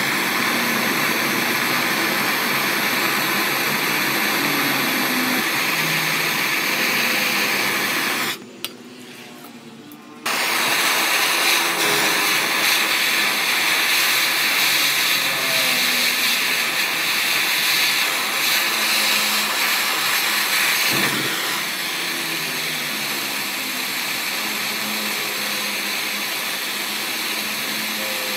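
Gas torch flame hissing steadily while heating a metal rod for brazing. It drops out for a couple of seconds about eight seconds in, then hisses on, a little quieter from about twenty seconds in.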